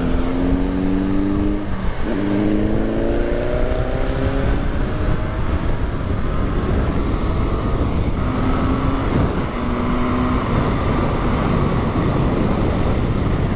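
Kawasaki Ninja 1000's inline-four engine accelerating through the gears: the revs climb, drop at an upshift about two seconds in, climb again and then settle into steady cruising. Heavy wind rush on the microphone runs underneath.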